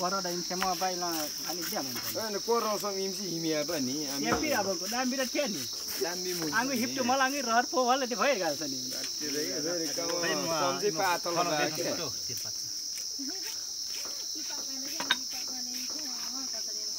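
Steady insect chorus, a high even buzz, with people's voices talking over it for about the first twelve seconds. A single sharp click comes about fifteen seconds in.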